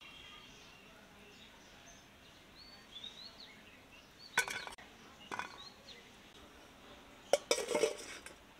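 A few sharp clinks and knocks of kitchen utensils, two single ones about halfway through and a closer cluster near the end, with faint bird chirps in the background.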